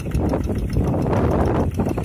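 Wind buffeting the microphone, swelling in a gust in the middle, over the steady running of a Quick G1000 walking tractor's engine as it pulls through deep mud.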